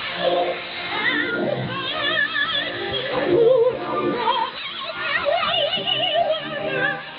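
Vocal music received over shortwave radio: singing with heavy vibrato over instrumental accompaniment, heard through a narrow, muffled receiver bandwidth.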